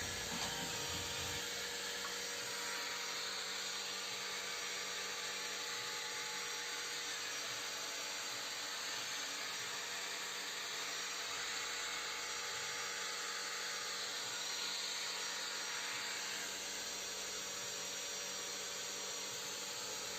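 Electric grinder running steadily, a constant whirring hiss with a few fixed tones.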